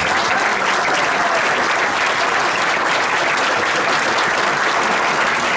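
A large crowd applauding steadily in a standing ovation: dense, continuous clapping.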